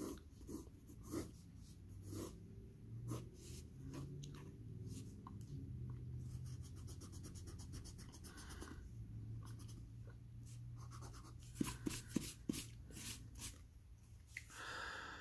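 Pencil scratching on drawing paper in short, irregular strokes, with an eraser rubbing the paper part of the time. A faint, steady low hum runs underneath.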